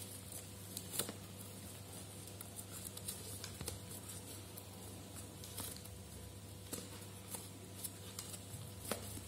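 Faint rustling and scattered soft ticks and taps of fingers working a ribbon bow loose on a cardboard box, over a steady low hum.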